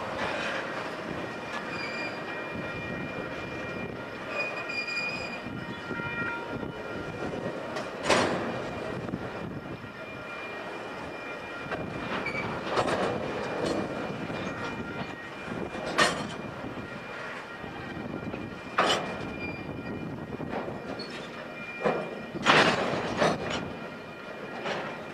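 Freight train of highway trailers on flatcars rolling past at a grade crossing: a steady rumble of wheels on rail with a faint high steady whine. About five sharp metallic clanks are scattered through, the loudest two close together near the end.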